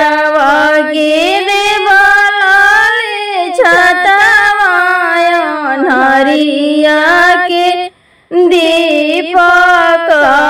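A woman sings a Bhojpuri son's-wedding song (beta vivah geet) unaccompanied, in long, drawn-out, wavering notes. There is a short pause for breath about eight seconds in.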